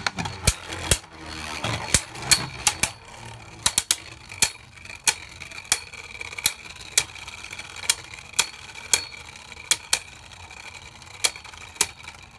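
Two Beyblade Burst spinning tops battling in a plastic stadium: a faint steady whine from their spin, broken by sharp irregular clicks, roughly one or two a second, as they knock against each other and the stadium.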